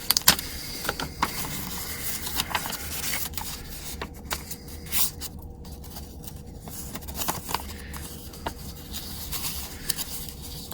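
Scattered light clicks, taps and scraping of small objects being handled on a work surface.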